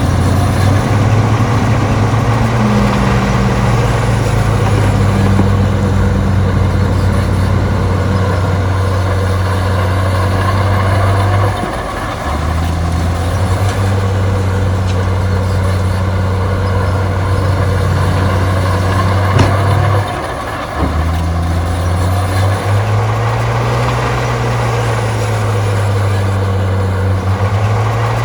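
Heavy diesel engine of earthmoving machinery running steadily under load. The engine note drops briefly twice, about 12 seconds and 20 seconds in, and picks up again. It rises slightly in pitch near the end.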